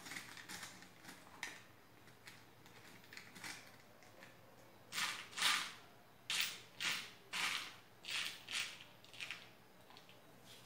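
Off-camera handling noise from parts being picked up and moved: a few faint clicks, then about halfway in a quick run of about nine short scuffs, roughly half a second apart.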